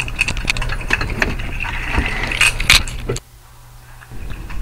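Jangling, rattling clicks over a steady hum, cutting off abruptly about three seconds in and leaving a faint hiss.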